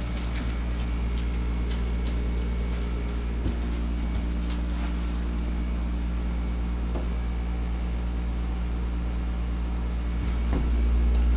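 Steady low hum of a running household appliance, with a couple of faint clicks; the hum gets louder near the end.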